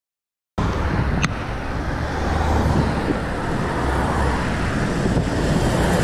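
Wind buffeting the action camera's microphone, with road and tyre noise, while riding a road bike; it starts abruptly about half a second in, after silence.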